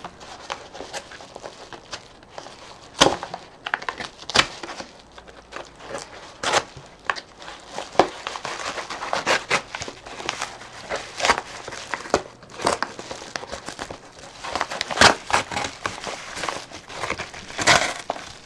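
A mailed package being slit and torn open with a bushcraft knife: irregular crinkling, tearing and sharp crackles of the wrapping and tape.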